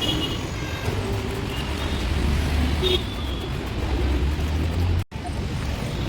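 Street traffic: a steady low rumble of passing motor vehicles that swells for a few seconds, cutting out briefly about five seconds in.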